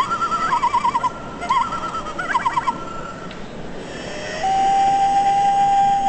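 Recorded common loon calls playing from the small speaker of a birdsong greeting card: several quavering tremolo calls over the first three seconds, then after a pause a long, steady held note starting about four and a half seconds in.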